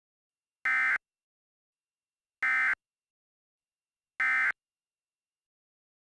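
Emergency Alert System end-of-message tones: three short bursts of buzzy SAME digital data code, about 1.75 s apart, signalling the end of the alert.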